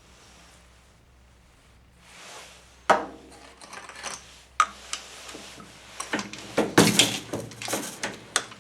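RCBS Mini Grand seven-station shotgun shell reloading press being worked: a sharp metallic clunk with a brief ring about three seconds in, a single click, then a quick run of clicks and rattles near the end.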